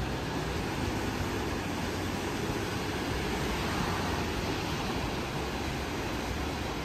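Ocean surf washing onto a beach: a steady rush of wave noise with no separate breaks standing out.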